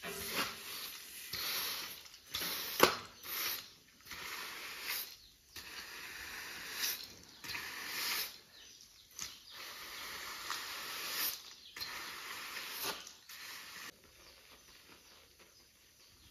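Cement mortar being scraped and spread across a floor in repeated rasping strokes, roughly one a second, with a single sharp knock about three seconds in. The strokes stop about two seconds before the end.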